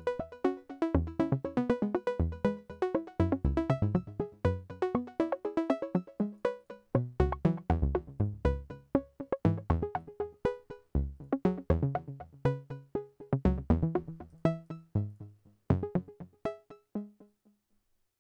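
Software modular synthesizer patch playing a sequenced, generative pattern: short plucked synth notes with low bass and drum-machine hits in a steady pulse. The notes are quantized to a seven-tone scale. The sound thins out and fades away over the last few seconds, stopping shortly before the end.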